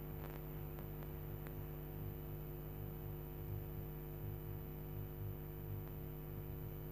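Steady low electrical hum, a stack of even tones, with a faint throb pulsing about twice a second underneath: background hum of the recording setup, heard with no narration over it.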